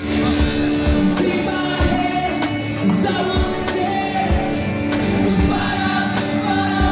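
Live rock band playing: a male singer over electric guitars and drums.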